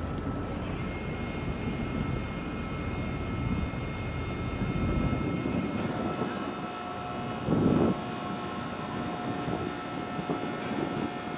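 Car ferry's machinery droning steadily with thin whining tones as its bow visor is raised. A further set of whining tones comes in about six seconds in, and a brief louder rumble follows about two seconds later.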